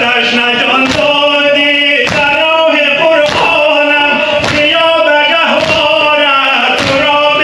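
A man chanting a noha, a Shia mourning lament, while the gathering beats their chests in unison (sineh-zani), a thud about every 1.2 seconds in time with the chant.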